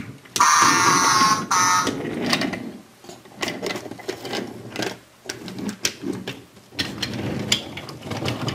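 Battery-powered wooden toy railway crossing sounding its electronic crossing alarm for about a second and a half as a toy train rolls through, with a short second burst just after. This is followed by light clicking and rattling of wooden toy train wheels over the wooden track.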